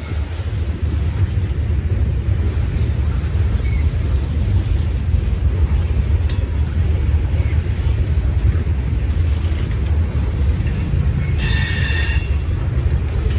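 A train rolling by with a steady low rumble, and a brief high-pitched squeal of steel wheels on the rail near the end.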